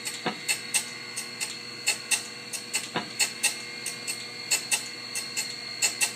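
Manual surface grinder running, with a steady whine from the wheel spindle and a quick, uneven run of sharp clicks, several a second, as the table is worked back and forth by hand to grind a metal shim.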